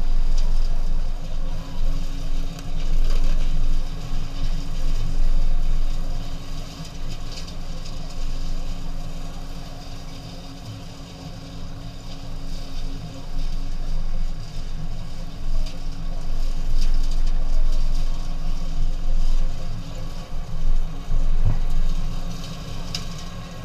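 Engines of slow-moving vehicles, a small tractor pulling a rotary mower just ahead of a pickup truck: a steady low rumble with a constant hum, swelling and fading in loudness, quietest around ten to twelve seconds in.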